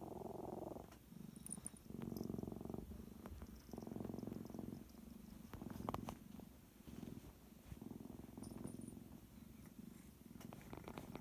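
A sleeping cat's rhythmic rumbling breath noises, half purr and half snore: a buzzing rumble on each breath, about a second long and repeating every second and a half or so. A short click comes near the middle.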